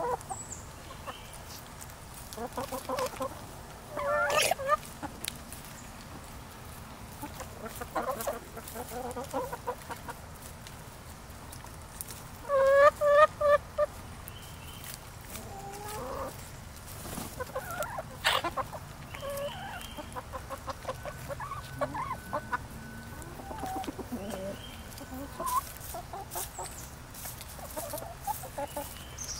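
Backyard hens clucking and giving short calls while they peck at a cantaloupe, in scattered bursts, with the loudest run of quick calls about halfway through.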